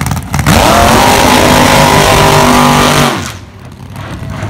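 Drag car's engine revving hard for a burnout. It rises quickly about half a second in, is held at high revs, very loud, for nearly three seconds, then drops back to a lower idle.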